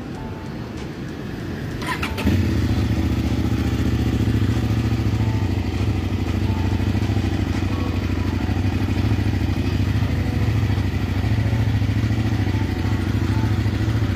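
CFMoto 800NK's 799cc parallel-twin engine (285° crank) starts about two seconds in and settles into a steady idle.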